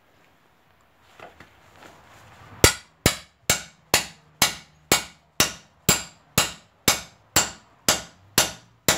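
Steel hammer blows on the steering knuckle and outer tie rod end of a Ford Focus, sharp ringing metal-on-metal strikes about two a second starting nearly three seconds in, knocking the tie rod end's tapered stud loose from the knuckle.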